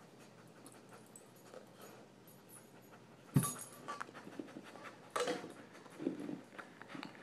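Dog breathing and sniffing at the cups and rug, with a sharp thump about three and a half seconds in and louder breathy huffs near the end.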